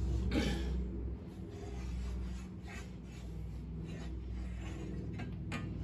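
A steel shaft being pulled out lengthwise through a lathe apron: metal scraping and rubbing on metal, with a sharp click near the end. A steady low hum runs underneath.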